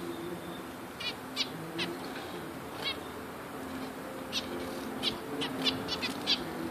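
Zebra finches calling: about ten short, high calls, a few spaced out at first and then a quicker run of calls in the second half.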